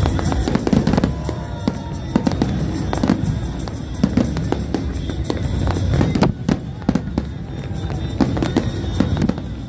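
Fireworks display: many bangs and crackles from bursting shells and low fountains, fired in quick, irregular succession over a constant low rumble.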